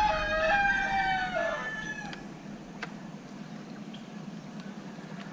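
A rooster crowing: the long drawn-out last note of the crow falls away about a second and a half in. A couple of faint ticks follow.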